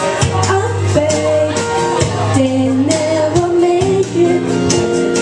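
A woman singing into a microphone over amplified musical accompaniment, with held notes over a low bass line and light percussion ticks.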